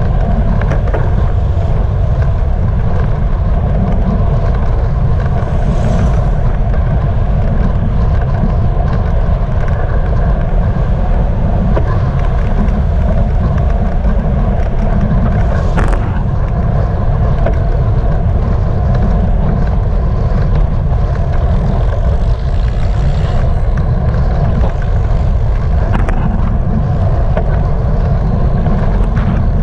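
Steady wind buffeting and road rumble on a bicycle-mounted action camera while riding, with car traffic alongside. A few sharp clicks come about ten seconds apart.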